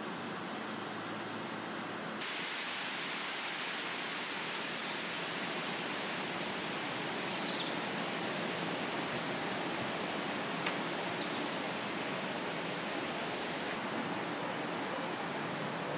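Steady, even background hiss with no distinct sound source; the hiss turns brighter about two seconds in, and there is a faint tick about ten and a half seconds in.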